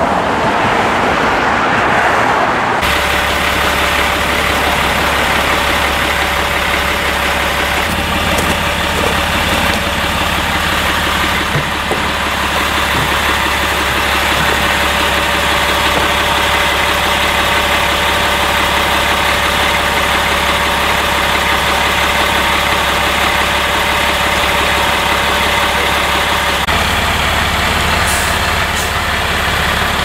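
Street traffic for the first three seconds or so, then a utility line truck's diesel engine idling steadily close by.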